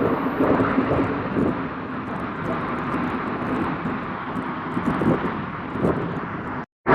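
Steady rush of Seljalandsfoss, a 60-metre waterfall, heard from the cave behind the falling water. The sound drops out for a moment near the end.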